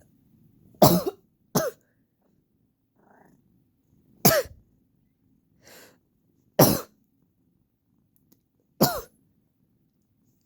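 A person coughing from allergies: about five short, sharp coughs spaced a second or two apart, with a couple of fainter ones between.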